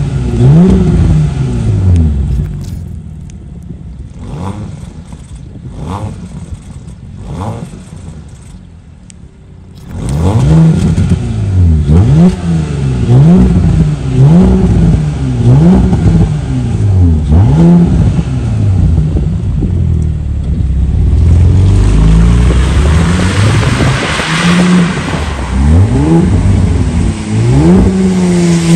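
Audi A7's 3.0-litre V6 through a tuned exhaust with a remote-controlled vacuum valve, revved repeatedly while standing still: short blips whose pitch rises and falls about once a second. A couple of seconds in the sound drops much quieter for several seconds, then the loud revving returns, with one longer held rev about two thirds of the way through.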